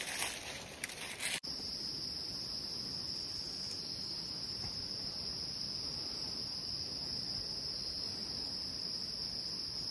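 Footsteps rustling through dry leaf litter for about the first second and a half, then, after an abrupt cut, a steady high-pitched insect chorus that keeps up without a break.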